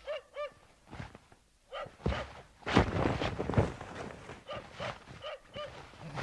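A dog whining and yipping in short, rising-and-falling calls, several in a row, with a louder stretch of rustling and thumps in the middle.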